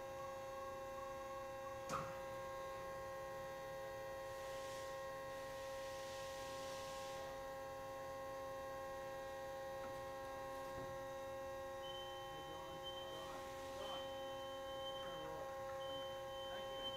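Steady machinery hum made of several held tones. There is a single click about two seconds in, a hiss around the middle, and from about twelve seconds in a high tone that switches on and off.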